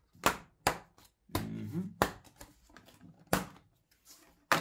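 Hard plastic battery-module cover being unclipped and lifted off, giving about five sharp clicks and knocks spread over a few seconds, with a short low murmur about a second and a half in.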